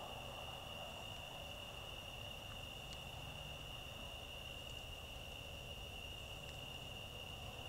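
Steady, high-pitched drone of an insect chorus, with a couple of faint ticks.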